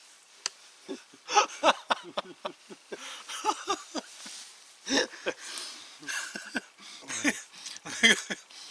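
A man imitating a horse's whinny with his voice in several short bursts, mixed with laughter.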